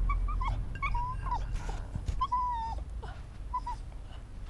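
A cocker spaniel–pug cross dog whining: a string of short, high whimpers, with one longer drawn-out whine about halfway through.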